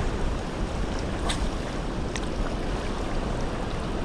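Steady rush of a fast-flowing river, with wind buffeting the microphone and a few faint clicks.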